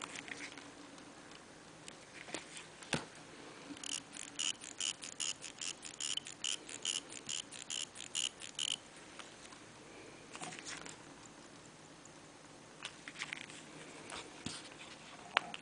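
Antique Vacheron Constantin pocket-watch movement, cased as a wristwatch, ticking close to the microphone: an even run of about five ticks a second in the middle. Before and after it come scattered clicks and rubs from fingers handling the case and strap.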